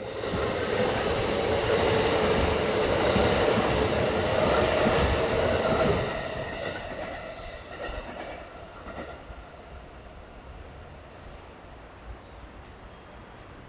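Train running along the track, with its wheels squealing and rail clatter; it is loud for the first six seconds or so, then fades away.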